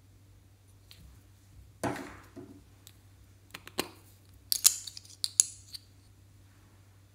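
Small objects being handled over a glass baking dish: one knock about two seconds in, then a quick run of sharp clicks and clinks.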